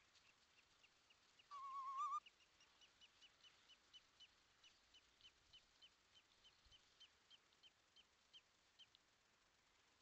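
Faint bird calls: one short quavering call about a second and a half in, the loudest sound, and a long run of short high chirps repeated about three times a second.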